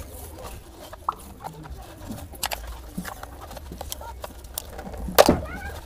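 Yellow adhesive tape being pulled off its roll and wrapped around a plastic emergency-light casing: scattered crackles and small clicks of handling, with one louder crackle about five seconds in.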